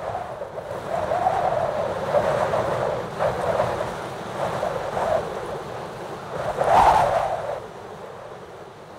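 Wind blowing in gusts, a rushing noise that swells and falls, loudest about seven seconds in.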